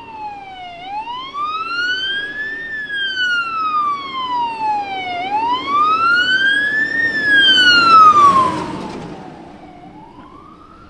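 Fire department rescue squad's siren on a slow wail, sweeping up and down about twice. It is loudest about eight seconds in, with a rush of noise, then fades.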